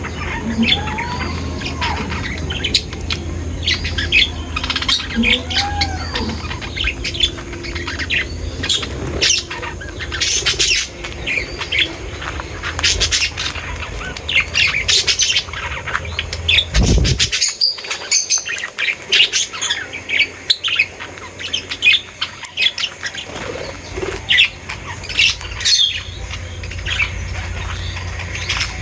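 A flock of small cage birds chirping and calling, with many short, overlapping notes over a low steady hum. There is a thump about seventeen seconds in, after which the hum drops out until near the end.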